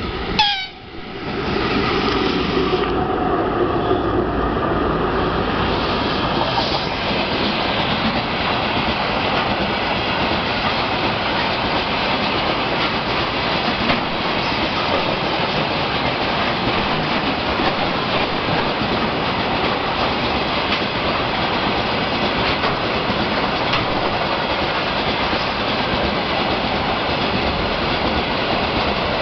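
Freight train of tank cars behind a VL11 electric locomotive passing close by: a brief whine with a falling tone in the first seconds as the locomotive goes by, then a long, steady run of wagon wheels clattering over the rail joints.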